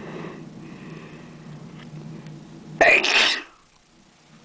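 A person sneezing once, loudly, about three seconds in; the sneeze lasts about half a second.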